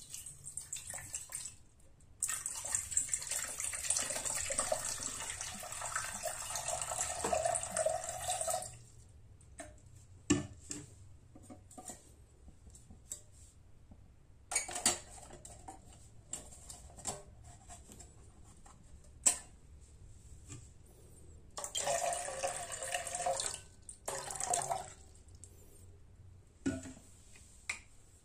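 Water poured from a bottle into an enamel mug: a steady pour of about six seconds. It is followed by scattered knocks and clinks as the enamel mug is handled and set onto the spirit stove's pot stand, with another few seconds of similar rushing noise later on.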